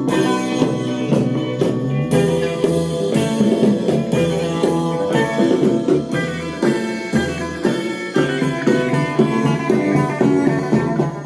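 Recorded music with a steady beat and pitched instrument notes, playing back through a home-made ECC85 valve RIAA phono preamp under test.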